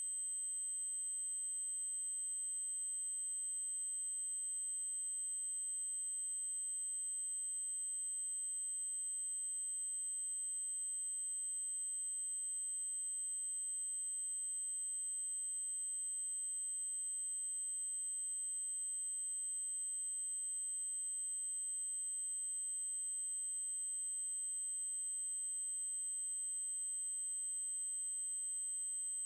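Steady 8192 Hz triangle-wave test tone: one continuous high-pitched tone held at a single pitch without change.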